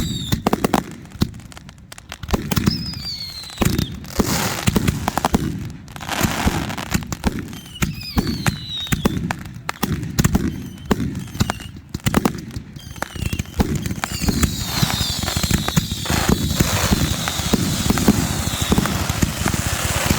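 Consumer fireworks going off: rapid pops and crackling with several whistling tones that fall in pitch. The whistles and crackle get denser from about two-thirds of the way in.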